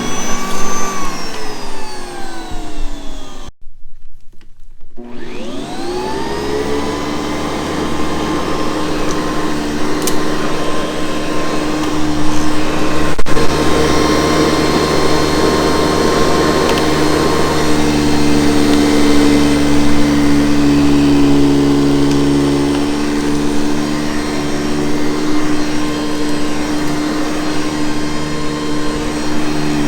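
Hoover Convertible U4387 upright vacuum cleaner's motor winding down with a falling pitch. It is then switched back on about five seconds in, spinning up with a rising whine and running steadily.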